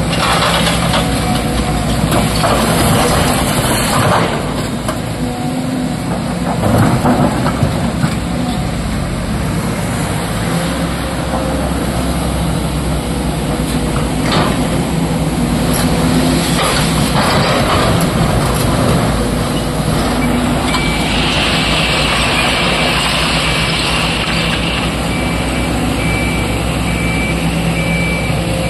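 A SANY SY225 hydraulic excavator's diesel engine running under load while it digs and swings, with broken rock clattering into the steel body of a dump truck at times. A steady high tone joins about two-thirds of the way through.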